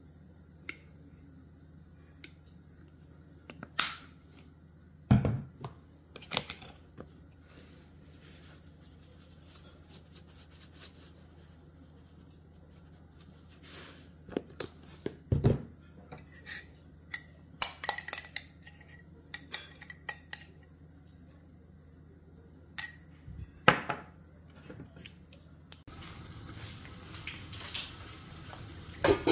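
Scattered clinks and knocks of kitchenware against a ceramic casserole dish, a few of them sharp. About 26 seconds in these give way to the steady hiss and bubbling of a pot of water at the boil.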